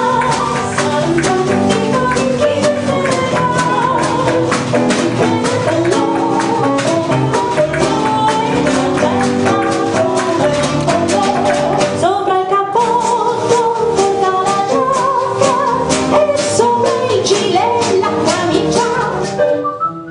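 Live female vocal group singing a jazzy song with a small acoustic band of guitar, double bass and piano, with a steady strummed beat. The music stops near the end.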